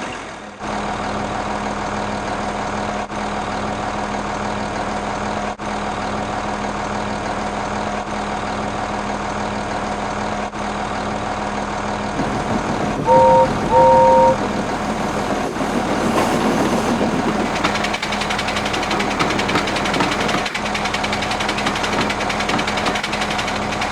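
Motor vehicle engine running steadily, with two short horn honks about 13 seconds in; the engine sound turns rougher and a little louder from about 17 seconds.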